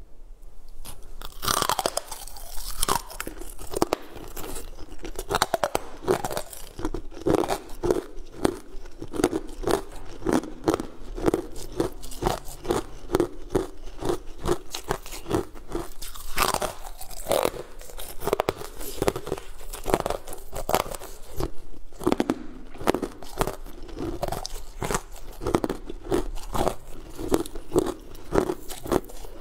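Close-up crunching and chewing as crunchy sugar-coated candy is bitten and eaten, a dense stream of sharp crackly bites.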